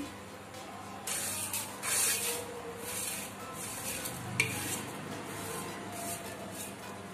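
Dry broken instant noodle pieces brushed off a steel plate by hand into a pan of simmering masala water, heard as a few short hissing, rustling scrapes in the first few seconds and lighter ones after, with a single click about four seconds in.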